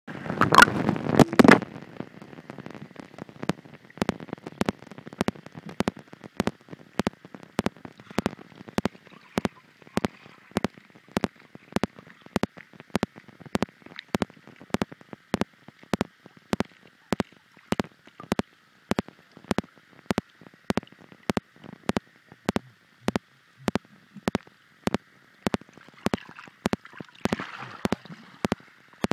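A phone microphone underwater just after dropping into a pond: a loud splashing burst as it goes in, then muffled underwater sound with a faint steady hum and short sharp clicks about twice a second.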